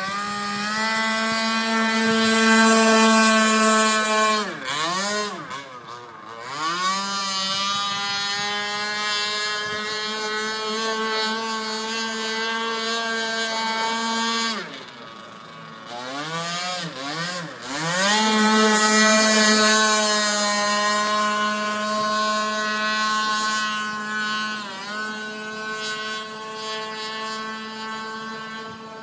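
Gas-powered RC boat's small two-stroke engine running flat out, a high steady buzz across the water. Twice its pitch drops and climbs back as the throttle is eased and opened again. It fades toward the end as the boat runs farther off.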